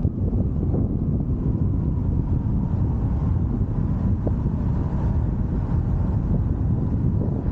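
Steady low rumble of a car driving along a road: engine and tyre noise mixed with wind noise.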